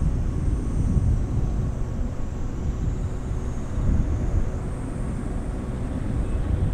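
Low, steady rumble of a distant Boeing 777-200ER airliner's jet engines as it flies its approach to land.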